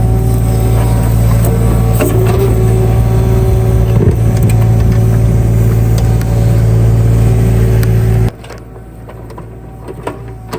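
A large engine running steadily close by, with scattered clanks and knocks. About eight seconds in the engine sound cuts off abruptly, leaving a much quieter background.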